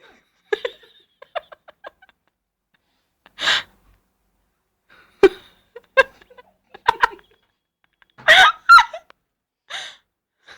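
A person hiccuping repeatedly: short, sharp gasping catches of breath every second or so at irregular intervals, some with a squeaky voiced catch.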